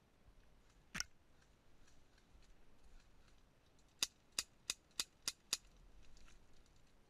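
Airsoft gun shots: a single shot, then a run of six shots about three a second, each a short sharp crack.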